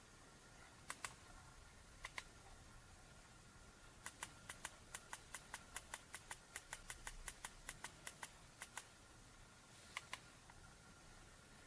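Clicks of remote-control buttons being pressed to browse TV channels: a double click twice, then a quick run of about five clicks a second for some five seconds, then one more double click near the end, over faint room tone.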